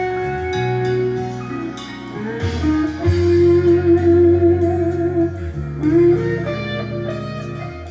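Guitar music with a bass line played through a Philco PHS180BT soundbar and its subwoofer, in a sound demonstration.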